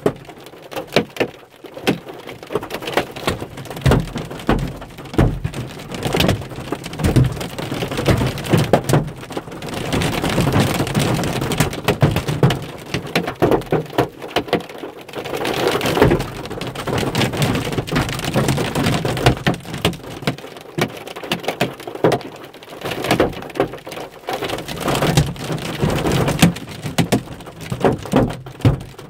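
Hail pelting a car's roof and windshield, heard from inside the cabin: a dense, uneven patter of hard knocks that grows heavier about ten seconds in and again about fifteen seconds in.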